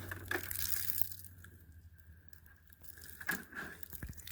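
Crinkling, crunching handling noise of a shot plastic water jug, quieter in the middle, with a couple of sharp clicks near the end.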